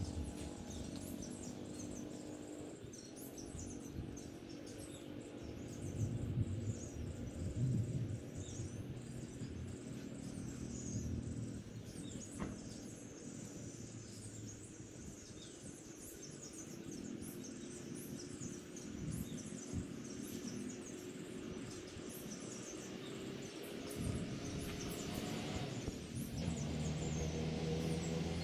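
Outdoor ambience: many short bird chirps and insect calls, with a low hum underneath.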